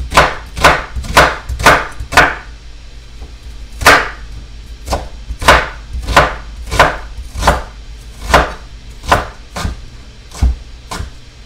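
Kitchen knife dicing an onion on a wooden cutting board: a steady run of sharp knocks about two a second as the blade strikes the board, with a short pause about two and a half seconds in.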